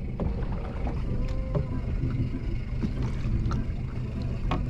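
A boat's engine running steadily with a low hum, with scattered light clicks and knocks on board.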